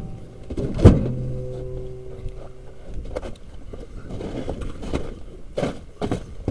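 A single knock about a second in, then a steady low hum for about two seconds, followed by scattered short crunching steps on packed snow.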